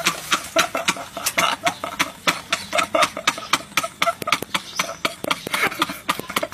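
Two men laughing uncontrollably in rapid, choppy bursts, about four or five a second.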